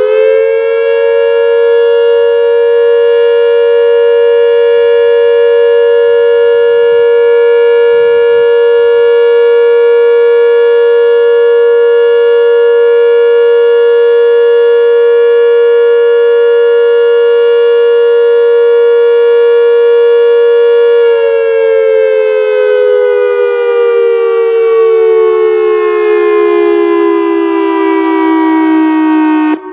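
Whelen WPS 2740 electronic outdoor warning siren sounding a loud, steady dual-tone alert signal, two close pitches held level. About two-thirds of the way through it begins winding down, both tones falling slowly in pitch.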